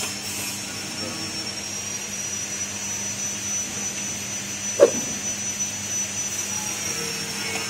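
Motor-driven rotating drum of a stainless-steel insect drying machine running: a steady hum with a high whine over it that eases down near the end. A single sharp knock about five seconds in.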